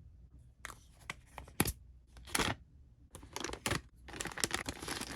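Plastic toy molds and packaging being handled and put away: a few separate sharp clicks and scrapes, then steady rustling and crinkling with small clicks from about three seconds in.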